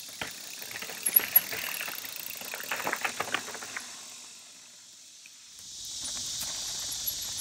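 Mountain bike clattering over rocks, with irregular sharp knocks and rattles for about the first four seconds. It then goes quiet, and a steady high hiss comes up near the end.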